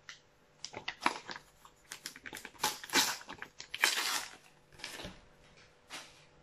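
A Panini sticker packet being torn open and its wrapper crinkled by hand: irregular crackles and rustles, loudest around three to four seconds in.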